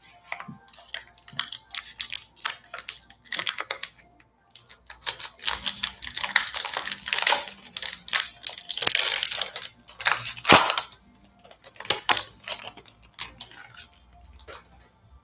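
Foil Magic: The Gathering collector booster pack and its trading cards being handled: an irregular run of crinkly rustles and card flicks, with short pauses and the sharpest crackle about ten seconds in.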